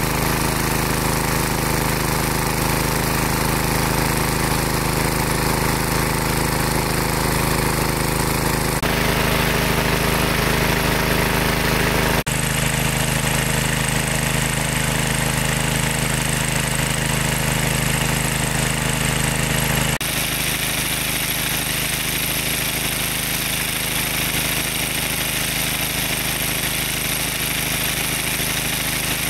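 Small engine driving a water pump, running steadily with an even drone. The sound shifts abruptly three times, about a third of the way in, near the middle and two-thirds through.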